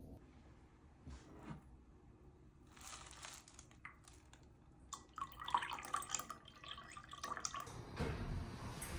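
Water poured into a ceramic teacup: faint trickling and splashing, strongest for a couple of seconds about halfway through.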